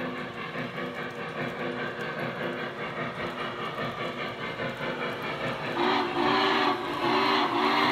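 Lionel Legacy O-scale Norfolk and Western Class J model steam locomotive running on three-rail track: its onboard sound system plays steady steam chuffing over the rumble of the wheels. Near the end the chime steam whistle sounds two long blasts, loudly.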